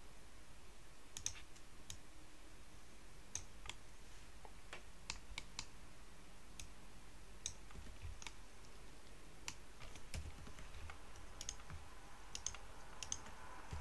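Irregular clicks from a computer mouse and keyboard, about two a second, over a faint steady hum.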